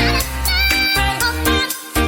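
Electronic instrumental music: synth melody notes over a deep bass, with the bass cutting out briefly near the end.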